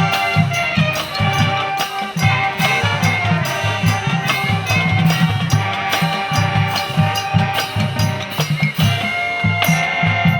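Music with a steady drum beat and sustained melodic tones.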